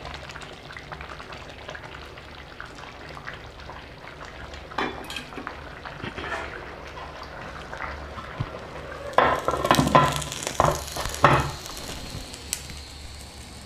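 Rice and coconut milk simmering and bubbling in an open aluminium pressure cooker, with a wooden spoon stirring through it. From about nine seconds in come several loud metallic clanks and rattles as the pressure cooker lid is handled and put on.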